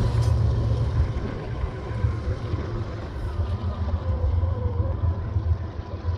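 Low rumble of a diesel freight locomotive and its train moving away just after passing. The hiss of the passing cars cuts off about a quarter second in, leaving a steady low rumble and a faint steady wheel tone.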